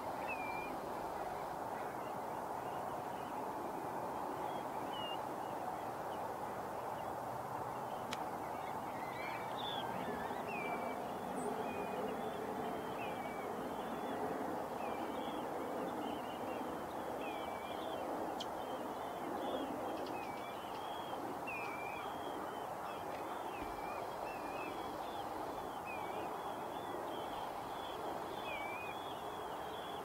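A large flock of birds calling: many short, repeated high calls, thicker from about a third of the way in, over a steady din of more distant calling.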